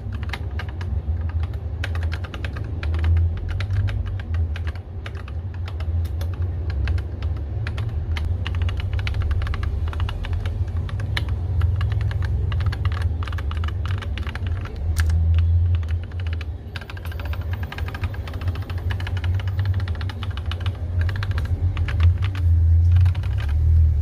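Continuous fast typing on a Rakk Illis mechanical keyboard fitted with Akko V3 Cream Yellow linear switches: a dense, irregular run of keystroke clacks, over a steady low rumble.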